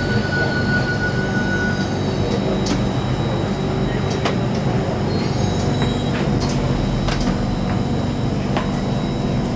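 Singapore Circle Line MRT train heard from inside the carriage, rolling slowly into a station platform and braking to a stop. It makes a steady hum, with a brief high whine in the first two seconds and a few sharp clicks.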